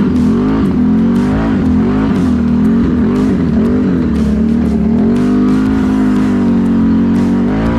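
2018 Can-Am Renegade XMR 1000R's V-twin engine running through an SLG Sniper Series slip-on exhaust while riding, the revs rising and falling with the throttle.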